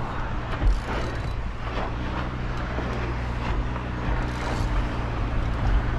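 A boat's engine running steadily at low revs, with wind and water noise and a few brief knocks.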